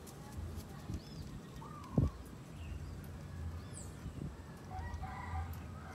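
Sparse, quiet bird calls: a short whistled note with a sharp knock about two seconds in, a few faint high chirps, and near the end a longer call of several stacked tones.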